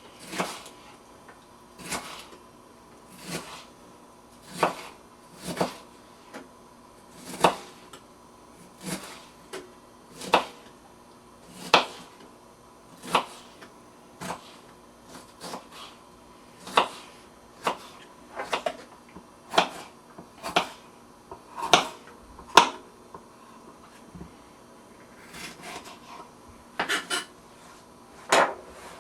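Kitchen knife chopping bell peppers on a cutting board: single sharp knocks of the blade against the board, roughly one every second or so, with a quicker run of strokes about twenty seconds in and a brief pause after.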